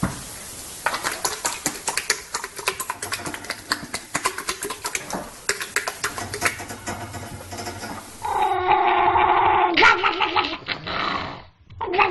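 A dog's noises: a rapid, irregular run of short sharp sounds for about eight seconds. Then comes a long, held, slightly wavering animal cry that stops abruptly near the end.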